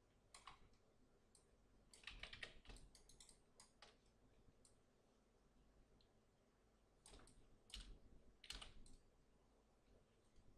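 Faint, scattered clicks of a computer keyboard and mouse, in small irregular groups with pauses between.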